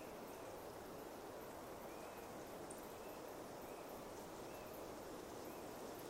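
Pine forest ambience: a steady soft hiss with a few faint, short chirping bird notes at irregular intervals, and faint high ticking.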